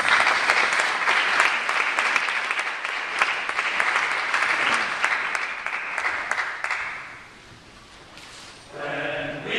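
Audience applauding, a dense clapping that fades out about seven seconds in.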